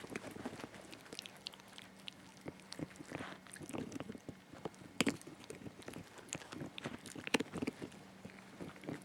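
Puppy gnawing and biting on a beef hide chew stick: irregular sharp clicks and knocks, the loudest about five seconds in and again a couple of seconds later.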